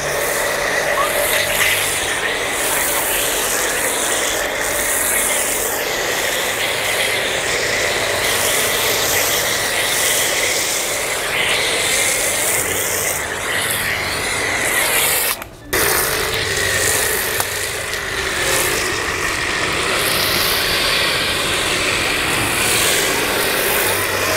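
JPT 1800-watt electric pressure washer running while its foam cannon sprays thick foam onto a car: a steady hiss of spray over the machine's steady running sound. It breaks off for a moment about fifteen seconds in.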